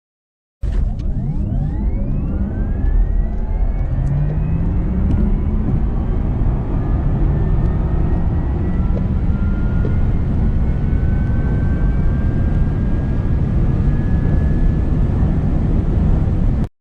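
Electric car accelerating hard at full power. Several motor whines rise in pitch, steeply at first and then more slowly as speed builds, over a heavy rumble of road and wind noise. It starts suddenly and cuts off near the end.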